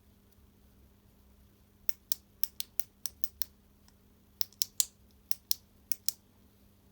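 Push-button click switch of a Makita ML807 work light clicked repeatedly, about fifteen sharp clicks in two quick runs. This old-type switch wears down with use until the light no longer comes on.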